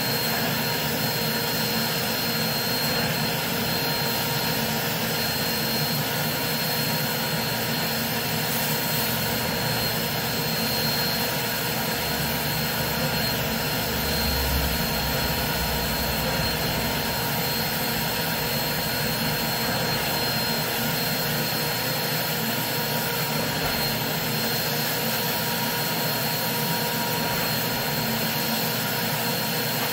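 Carpet-cleaning extractor running steadily, its vacuum drawing air and water up through the floor wand as the cleaning head passes over the rug: a constant rushing whine.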